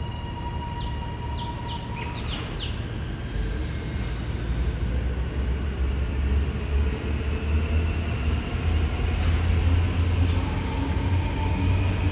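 Melbourne Metro electric suburban train running on the track, its low rumble growing louder from about three seconds in as it draws near.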